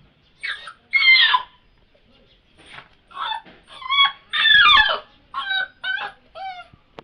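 Puppies yelping and whining in a string of about ten short, high-pitched cries, several sliding down in pitch, the loudest about a second in and again past the middle.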